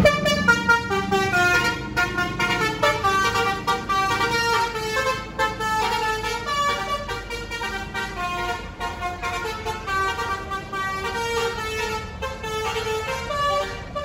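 Coach bus's basuri (telolet) musical horn playing a quick tune of changing notes, growing slightly fainter as the bus pulls away.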